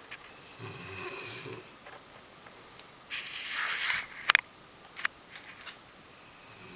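A sleeping man snoring: a rough snoring breath in about half a second in, a noisy breath out around three seconds in, then a sharp click, the loudest sound, with a second breath starting near the end.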